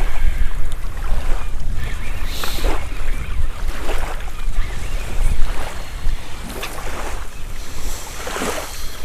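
Wind buffeting the microphone in a steady low rumble, with a few irregular short rustling or splashing noises over it.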